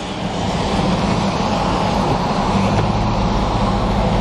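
Steady road noise heard from inside a moving car on a wet interstate: tyres hissing on the wet pavement over a low, steady hum.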